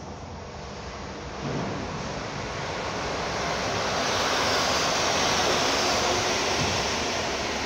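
Newag Griffin EU160 electric locomotive and its intercity coaches passing, a steady rush of wheels on rails. It swells from about a second and a half in, is loudest midway, then eases a little.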